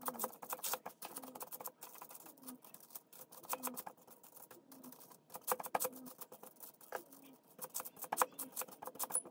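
Faint, irregular light clicks and taps, coming in bunches, with a faint short low note repeating about once a second.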